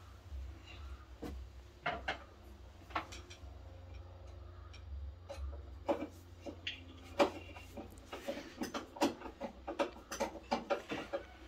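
Scattered clicks and light taps of a TV wall-mount bracket being fastened by hand, coming quicker and busier about eight seconds in, over a faint low hum.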